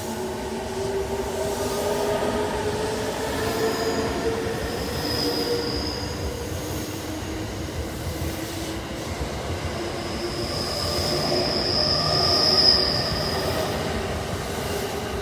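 JR East E217-series electric multiple unit pulling out and accelerating along the platform: the traction motors' whine rises slowly in pitch over the rumble of wheels on rail. A high, steady squeal comes in twice, the second longer and louder, about ten to thirteen seconds in.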